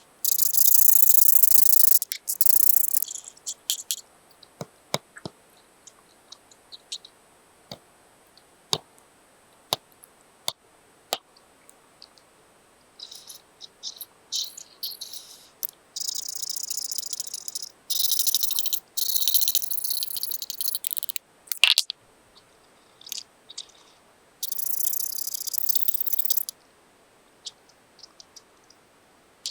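Paper being handled and worked by hand: scratchy rustling in bursts of a second or two, with scattered light clicks and taps between them.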